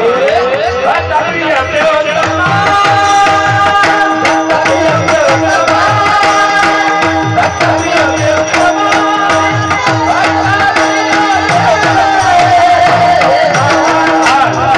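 Devotional kirtan singing with a hand drum playing a fast, steady rhythm and a held drone note underneath.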